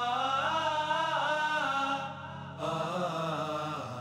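Dramatic background score: a sung, chant-like vocal line with slow pitch glides held over a steady low drone, breaking off about two seconds in and coming back half a second later.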